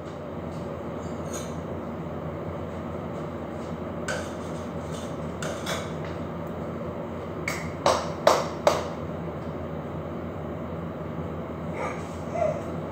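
Kitchen with a steady low hum and scattered sharp clinks and knocks of kitchenware. Three loud clinks come close together about eight seconds in.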